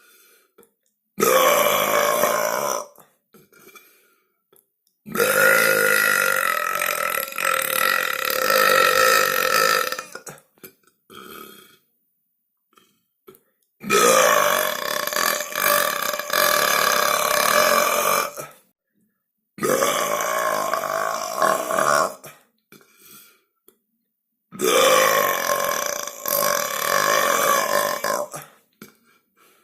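A series of loud, drawn-out human burps, about five in all, each lasting roughly two to five seconds and holding a steady pitch, with short silent gaps between them.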